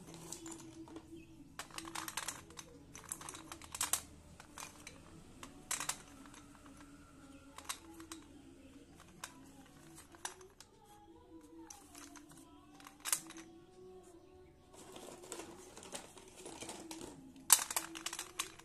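Sticks of school chalk clicking against a steel plate and against each other as they are set down and stood on end, in irregular clusters of light taps, the sharpest near the end.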